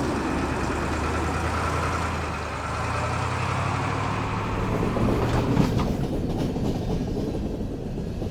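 A large vehicle running steadily with a low droning hum, which gives way to a rougher rumble about five and a half seconds in.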